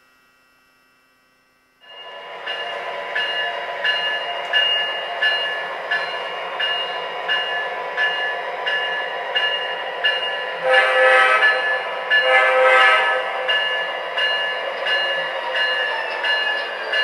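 MTH Proto-Sound 3.0 sound system in an O scale Norfolk Southern SD50 model playing locomotive sounds through its speaker as the train passes. It starts about two seconds in, after silence, with a regular ringing pulse somewhat under twice a second like a locomotive bell, and two short louder horn-like blasts around the middle.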